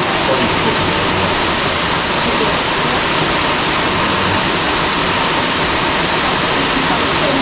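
A waterfall close by: loud, steady rushing of falling water.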